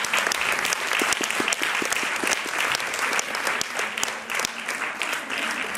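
Audience applauding, a dense mass of hands clapping.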